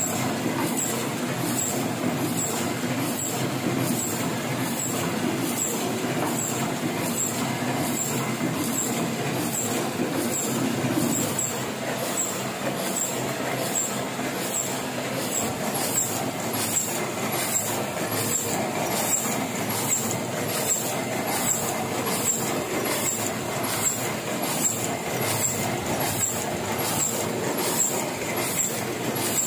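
Heidelberg sheet-fed offset printing press running at production speed. Its steady mechanical din carries a regular ticking a little under twice a second.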